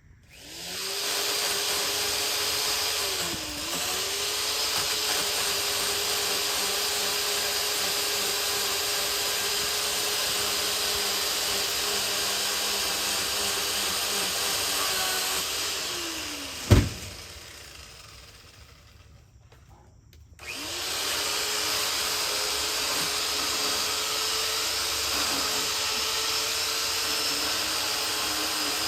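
Worx 10-inch electric pole saw spinning up and running at a steady pitch, with a brief dip about three seconds in. It winds down after about fifteen seconds, a single sharp crack follows, and then the saw starts again and runs steadily.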